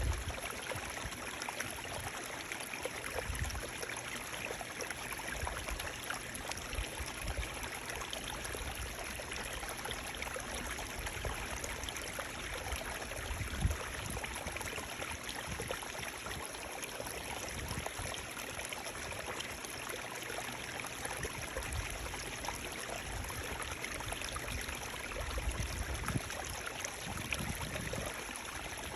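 Running water flowing steadily with a continuous rushing, trickling sound. A few low bumps rise under it, the strongest about halfway through.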